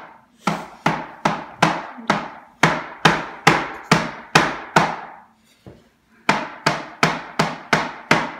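Kitchen knife chopping down hard and repeatedly onto a plastic cutting board: a steady run of sharp knocks, about two to three a second, with a pause of about a second a little after halfway before the chopping resumes.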